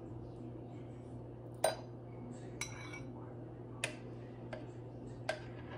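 A metal spoon clinking against glass dishes four times as cream is scooped from a glass bowl and spooned onto strawberries in a glass cup, the first clink the loudest. A faint steady low hum runs underneath.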